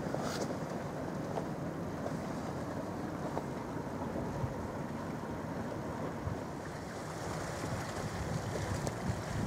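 Waterfront ambience as a large car ferry passes: a steady low rumble under wind buffeting the microphone. A higher hiss grows near the end.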